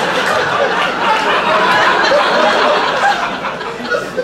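Audience laughing together, a large crowd of voices, easing off a little near the end.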